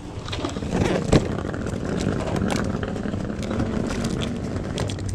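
A vehicle engine running with a steady low hum, with a sharp click about a second in.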